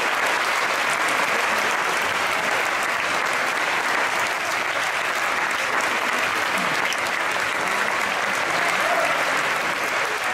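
Large theatre audience applauding: dense, steady clapping that holds at an even level throughout.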